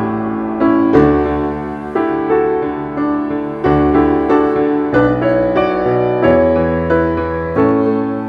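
Background piano music: a gentle melody of struck notes and chords over sustained bass notes.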